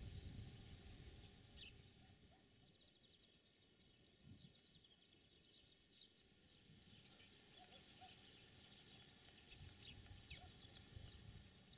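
Faint birds chirping in quick short notes, thickest in the second half, over a quiet low rumble.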